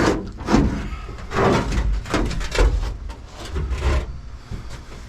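Pieces of scrap metal being handled and tossed in a pile: several separate clunks and clatters spread over a few seconds.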